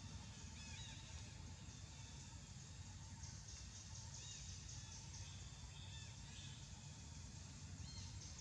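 Faint outdoor ambience: a high insect buzz that swells and fades, with short bird chirps every second or two, over a low rumble.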